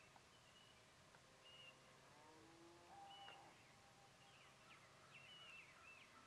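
Near silence with faint, distant birds chirping: scattered short high calls, with a few lower sliding notes a couple of seconds in, over a faint low steady hum.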